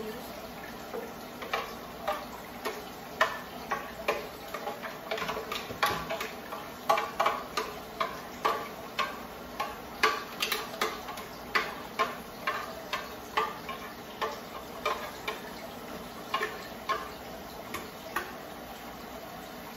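A spoon knocking and scraping against a pan, irregularly, about one to two knocks a second, as blended black beans are stirred in it.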